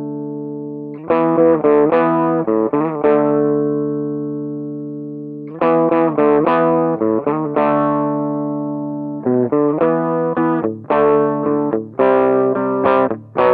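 Electric guitar played through a Line 6 Pocket Pod amp modeler: strummed chords left to ring out and fade, with a new group of quick strums every few seconds. The playing stops abruptly near the end.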